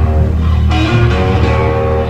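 Blues-rock band playing at a sound check: electric guitar lines over a steady, heavy bass.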